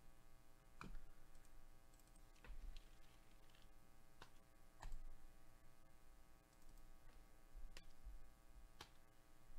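Soft, scattered clicks of a computer mouse and keyboard, about half a dozen over nine seconds, over a faint steady electrical hum.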